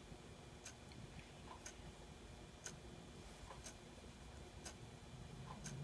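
Clock ticking faintly and steadily, one sharp tick a second, with softer ticks between some of them.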